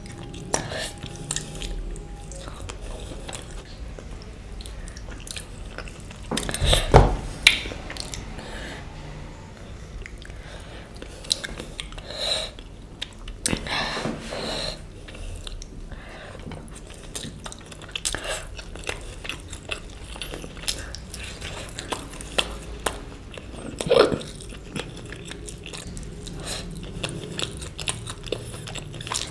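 Close-miked chewing and biting of food: irregular wet mouth sounds and crunches, with louder bites about seven seconds in and again near 24 seconds.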